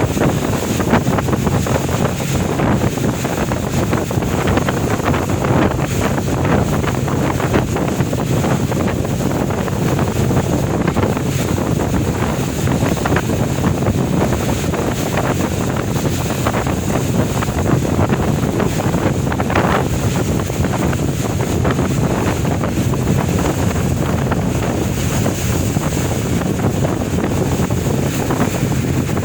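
Fishing boat engine running steadily at sea, with wind buffeting the microphone and water washing around the hull.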